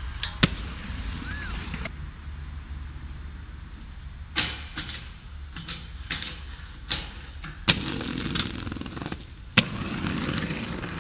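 Inline skate wheels rolling on hard ground, with four sharp clacks a few seconds apart; the rolling noise gets louder near the end.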